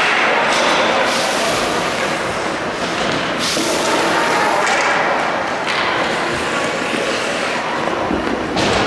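Ice hockey play on a rink: a steady rush of noise with skate blades scraping on the ice in bursts that come and go every second or two.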